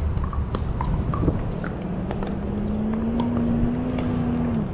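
Pickleball paddles striking the plastic ball and the ball bouncing on the hard court during a rally: a string of sharp pops. Under them is a low rumble and a steady hum that rises slightly and cuts off suddenly near the end.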